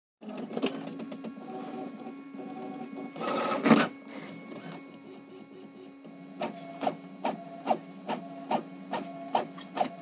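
Brother DCP-T310 ink-tank printer running a copy: a steady motor whirr with a louder rush about three and a half seconds in. Then, as it prints, regular clicking strokes about two and a half a second.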